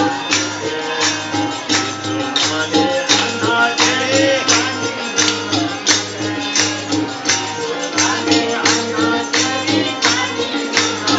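Live devotional bhajan music: tabla drums and a regular clapped or jingling beat, with singing over them.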